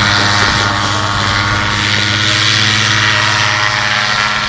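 Paramotor engine and propeller running at a steady, unchanging pitch.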